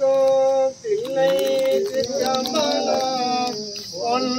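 Voices singing a devotional chant in long held notes, with several voices overlapping in the middle.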